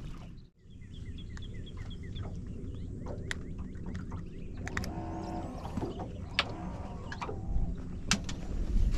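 Steady wind and water rumble on an open boat, with several sharp knocks and clicks from fish and tackle being handled on the deck. A quick run of high chirps comes about a second in.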